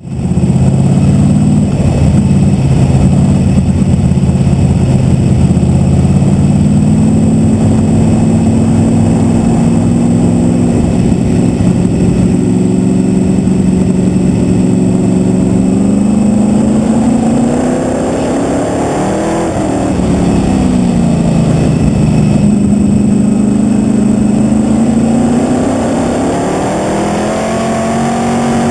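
Winged sprint car engine at racing speed, heard loud from a camera mounted on the car itself. Its pitch rises and falls as the driver lifts and gets back on the throttle round the oval, with a clear dip and climb about two-thirds of the way through.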